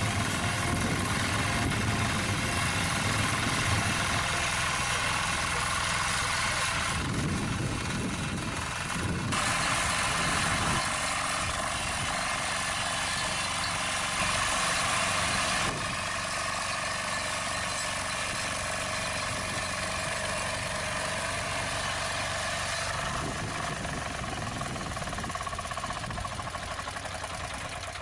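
Small engine of a walk-behind power tiller running steadily while it pulls a ridger through soil. The tone changes abruptly a few times.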